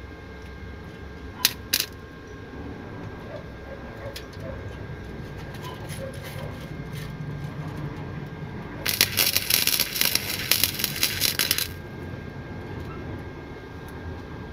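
Flux-core welding arc crackling and sputtering for about three seconds in an overhead tack weld on a car's exhaust flex pipe, then cutting off sharply; the welder suspects the pipe is aluminum. Earlier, two sharp clicks come in quick succession.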